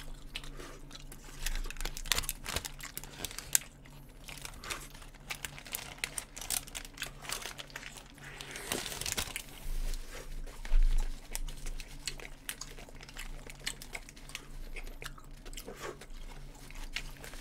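Close-miked chewing and biting of McDonald's Signature burgers, with the paper wrappers crinkling now and then. Many small irregular clicks over a faint steady hum.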